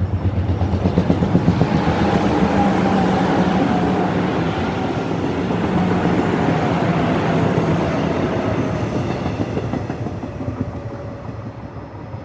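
Electric subway train passing close by on surface track, with a fast rhythmic wheel clatter over the rail joints at first and a faint motor whine sliding slowly down in pitch. It swells over the first two seconds, stays loud for several seconds, then fades as the train moves away.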